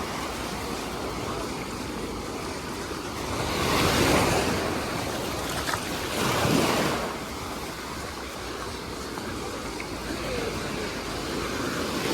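Sea waves washing onto the beach, two of them breaking louder about four and six and a half seconds in, with some wind on the microphone.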